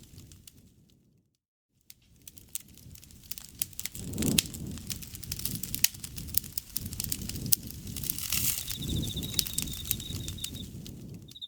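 Campfire crackling and popping over a low rustle of burning wood; the sound fades out to silence about a second in and fades back in shortly after. From about eight and a half seconds an insect trills steadily at a high pitch for about two seconds.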